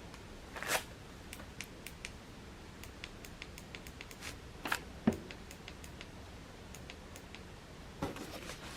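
Faint scattered clicks and a few light knocks of small objects being handled, heard in a small room.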